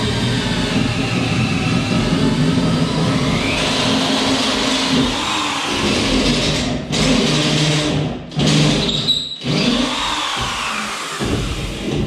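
Electric drill driving a long drill bit through wooden ceiling blocking. The motor's pitch rises and falls under load, with a few brief pauses in the second half.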